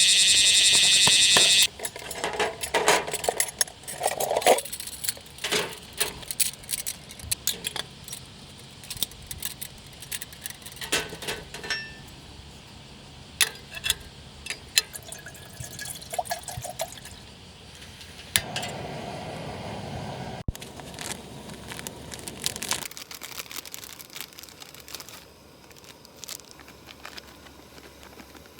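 Music cuts off about two seconds in, then irregular clinks and knocks of objects being handled, with a few seconds of liquid pouring about two-thirds of the way through.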